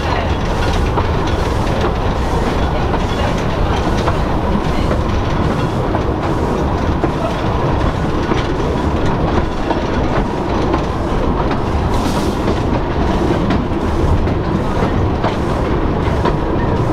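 Narrow-gauge railway carriage running along the track: a steady rumble with the clickety-clack of the wheels over the rail joints and a faint steady whine.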